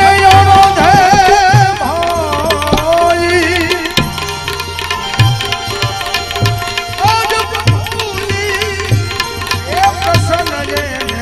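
Devotional bhajan music: tabla playing a steady rhythm, its deep bass stroke falling about once a second, under a melody that holds notes and slides and wavers between them.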